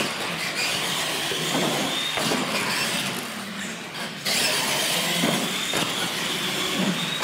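Electric R/C monster trucks racing flat out across a concrete floor: motors and gears whining, tyres rolling. A faint high whine rises a little as they pick up speed, and the sound jumps louder again about four seconds in.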